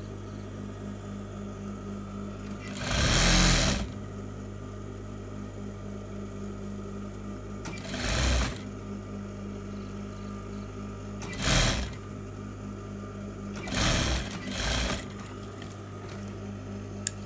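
Sewing machine stitching a side seam in about five short runs, the first and longest lasting about a second, the rest shorter, over a steady low hum.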